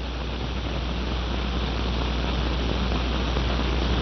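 Steady rushing noise over a low hum, slowly growing louder: a rocket-engine sound effect for a spaceship.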